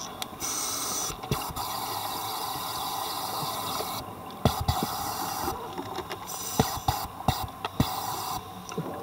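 Scuba regulator exhaust heard underwater: a diver's exhaled bubbles hissing in two long breaths of about three seconds each, with several sharp knocks between and after them.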